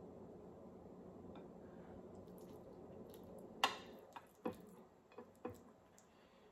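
Close-miked sounds of eating fried fish by hand: after a quiet first half, a few sharp wet clicks and smacks from about halfway on, the first the loudest.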